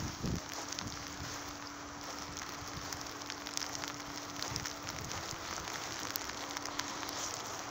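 Steady hiss and irregular crackling patter of falling snow ticking on surfaces, with a faint steady hum underneath and a couple of dull thumps at the start.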